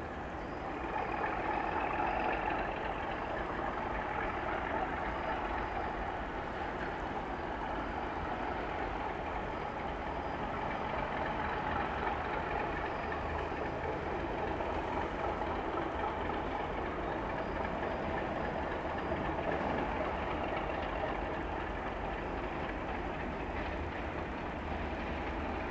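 Diesel locomotive engine running steadily as the locomotive creeps slowly toward the platform over the points.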